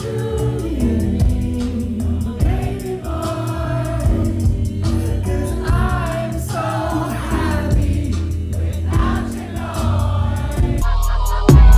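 Live indie band music: a male lead voice singing into a microphone over the full band, with heavy bass. Near the end it cuts abruptly to a different track with a deep bass tone and a loud hit.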